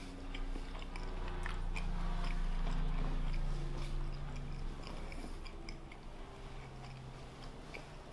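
Close-miked chewing of food, with small, irregular wet mouth clicks.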